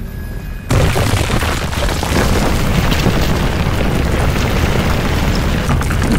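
A sudden explosive boom just under a second in, followed by a heavy, continuous rumble with crackling debris. It is a sound effect for giant crystal spikes bursting up out of the ground and shattering a city street.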